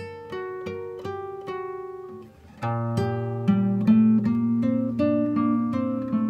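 Background music: plucked acoustic guitar picking a light melody, which becomes fuller and louder with deeper chord notes about two and a half seconds in.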